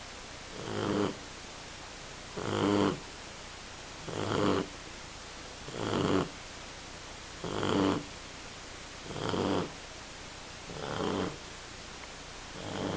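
10-week-old shar pei puppy snoring loudly in her sleep: about eight snores, one every second and a half to two seconds, each swelling for about half a second and then breaking off.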